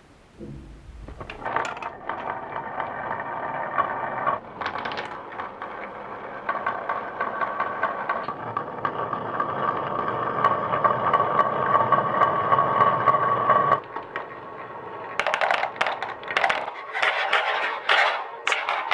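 Marbles rolling down a wooden HABA marble run: a steady rolling rumble with a ringing tone that stops suddenly about two-thirds of the way through, followed by a quick run of clicks and clacks as marbles drop and knock against the wood and each other.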